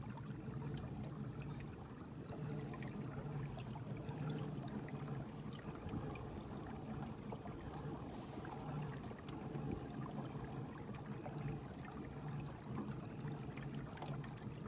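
Water trickling and splashing around a kayak on a lake, with scattered light ticks.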